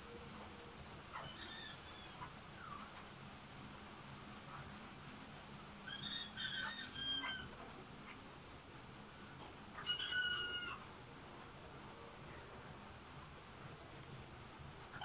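Roosters crowing in the background, three crows in all: one about a second and a half in, the longest around the middle, and a shorter one about two-thirds through. A steady high ticking repeats a few times a second underneath.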